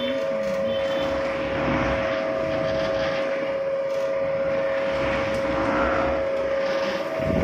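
Motorised oil chekku (rotary oil press) running, its pestle turning through oilseed paste in the steel bowl: a steady machine drone with a constant whine.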